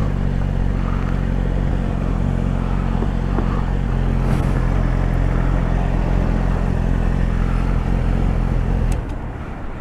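Yamaha sport bike's engine idling steadily, heard from the rider's seat; it stops about nine seconds in.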